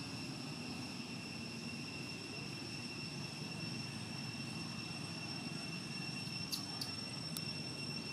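Steady forest background: a low distant rumble under a constant high-pitched insect drone, with a few faint clicks about six and a half to seven and a half seconds in.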